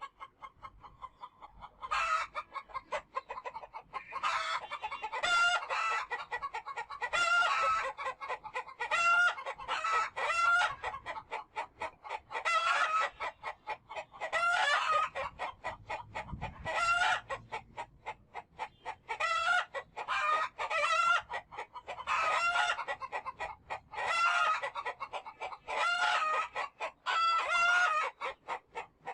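Chickens clucking: a string of short, repeated calls about every second or two, with some longer calls that bend up and down in pitch.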